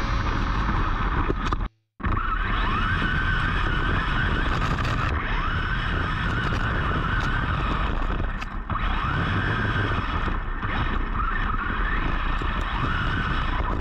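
Arrma Typhon 3S RC buggy driving over dirt, heard from a camera mounted on the car: its brushless electric motor's whine rises again and again as it accelerates, over a steady rush of wind and tyre noise. The sound drops out for a moment about two seconds in.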